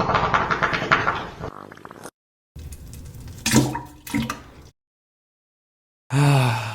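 Water running and splashing in a bathroom, fading out about two seconds in. After a silent gap comes a fainter stretch with a brief vocal sound, and a low falling sigh-like voice sound near the end.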